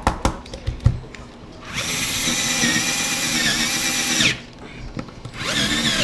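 A few sharp knocks in the first second. Then an electric drill with a 1-inch hole saw runs at speed with a steady whine for about two and a half seconds, stops, and starts again about a second later.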